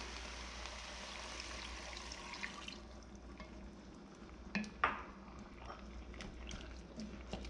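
Red wine poured into a hot enamelled cast iron pot of browned beef and vegetables, sizzling as it deglazes; the sizzle dies back about three seconds in. Then a wooden spatula stirs and knocks against the pot a few times.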